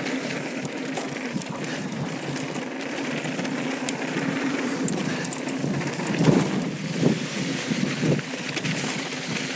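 Mountain bike rolling fast downhill: tyre noise over loose dirt and gridded pavers, wind on the microphone, and the bike rattling, with a few harder knocks from bumps between about six and eight seconds in.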